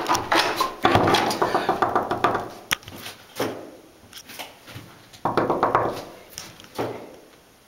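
A locked wooden door being tried: its lever handle clicks and rattles, then the door thuds in its frame three times, each thud ringing on briefly.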